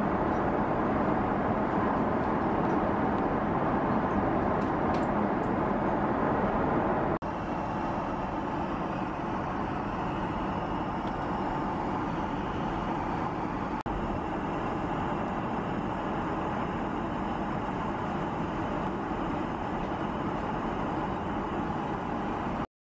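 Steady cabin noise of a Boeing 777 in flight: a constant rush of jet engine and air-conditioning noise. It steps down a little in level about seven seconds in and cuts off to silence just before the end.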